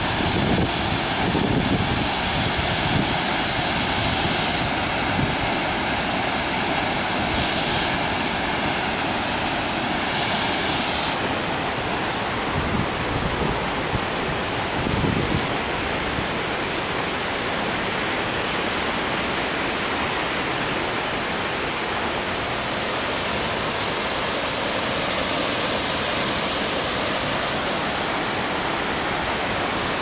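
Steady rushing of a large waterfall in full monsoon flow, an even wash of noise that changes in tone about eleven seconds in.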